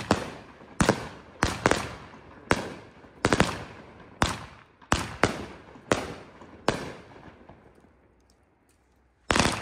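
23-shot 'Mamba Mentality' consumer fireworks cake firing, with about a dozen sharp bangs in quick succession, each trailing off. A pause of about two seconds follows, then a tight cluster of several reports near the end.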